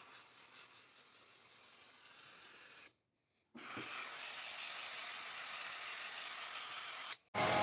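Steady, even hissing noise with no pitch or rhythm. It is faint at first, cuts out completely for about half a second around three seconds in, and comes back louder.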